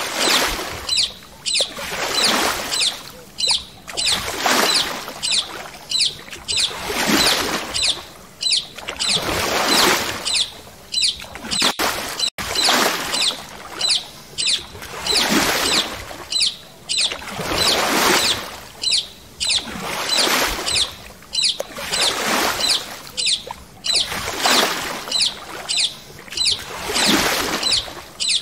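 Water swishing in even surges about every two and a half seconds, with quick high chirps or ticks running through it.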